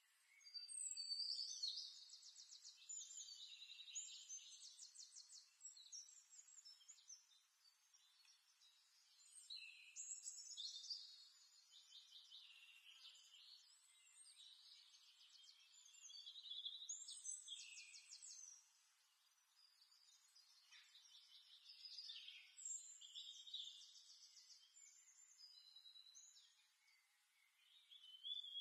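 Faint birdsong: a songbird singing phrases of quick trills and high whistled notes, each a few seconds long, about every six seconds.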